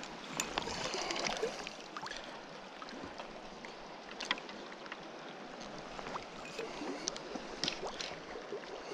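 Steady rush of river water flowing over a riffle, with a few scattered light clicks from the rod and baitcasting reel being handled.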